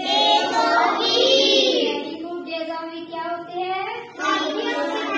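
A class of young children singing together in unison, with long held notes and short breaks between lines.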